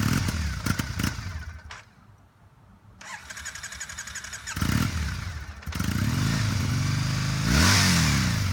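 2014 Triumph Bonneville T100's 865cc fuel-injected parallel-twin engine starting about halfway in and settling into a steady idle, then blipped once with a quick rise and fall in revs near the end.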